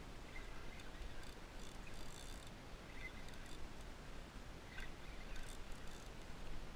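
Faint wind and water noise on open water, with a few faint short squeaks or chirps scattered through it.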